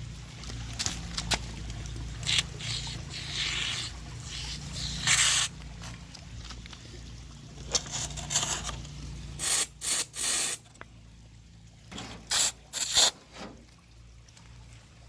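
A can of expanding spray foam dispensing in short hissing spurts: one about five seconds in, then two quick groups of three near the end.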